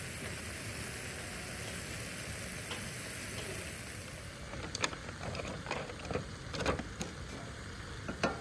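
Tomato and pepper sauce sizzling in a large wok-like steel pan over a fire, a steady hiss. About four and a half seconds in, the hiss drops and a run of light knocks and scrapes follows as pepper strips go into the pan and a wooden spatula works the sauce.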